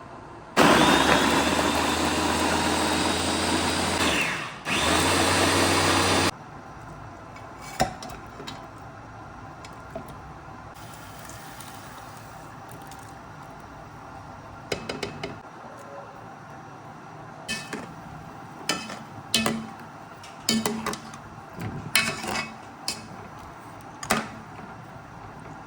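Electric kitchen blender running in two bursts of a few seconds each, with a short pause between them, then stopping abruptly. After it come scattered short knocks and clinks.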